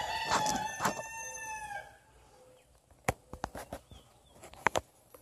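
A rooster crowing once, one long call of about two seconds at the start. Later come a few sharp clicks and knocks from plastic treat tubs being handled in a cardboard box.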